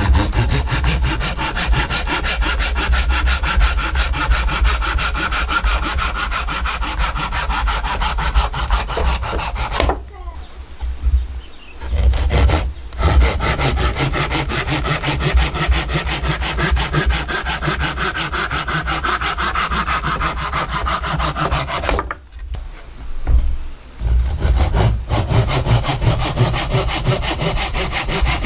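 Wood being sawn: fast, steady, rasping strokes, broken by two short pauses about ten and twenty-two seconds in.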